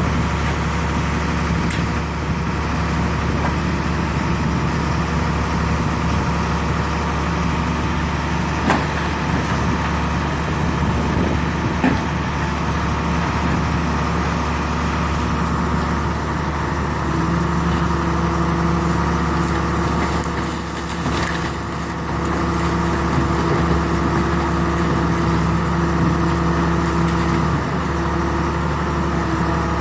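Engine of a trailer-mounted RB 5000 baler with twin compression rams, running steadily at idle. A steadier hum joins in a little past halfway and holds, with a brief dip about two-thirds of the way through.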